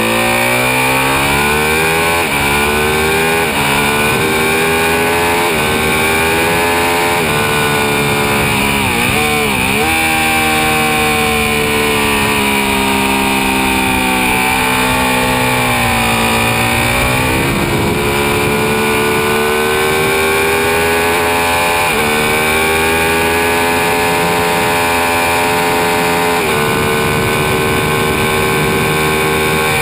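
Ducati 1199 Panigale's Superquadro L-twin engine at high revs under hard acceleration, its pitch climbing through the gears and dropping sharply a few times on gear changes and braking, over steady wind rush.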